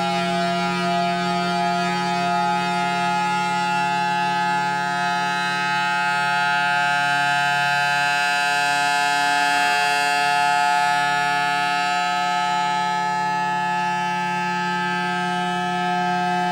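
Federal Signal Thunderbolt 1000T outdoor warning siren sounding a steady, level tone with many overtones. It is reverse wired, so it draws air in through the horn. The sound swells slightly toward the middle and eases again.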